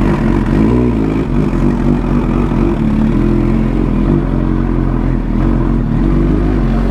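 Suzuki GSX-R1000 sportbike's inline-four engine running steadily at low revs, freshly started, as the bike rolls slowly.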